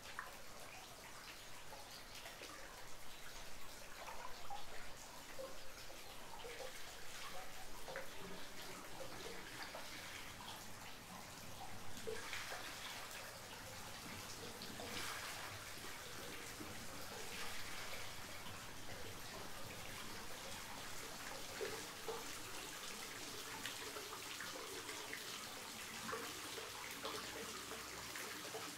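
Hot-spring water trickling and dripping into a stone bath pool, faint and continuous.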